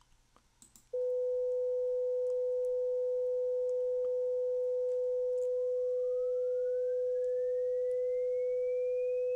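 A steady 500 Hz sine test tone starts about a second in, with a much fainter second sine tone above it. About halfway through, the second tone begins a smooth upward sweep in pitch. As it moves away from the 500 Hz tone, it breaks out of that tone's masking and can be heard as a separate rising tone.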